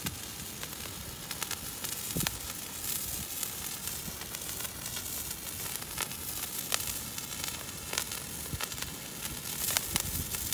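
Two handheld fireworks burning: a steady hiss of spraying sparks, with scattered sharp crackles.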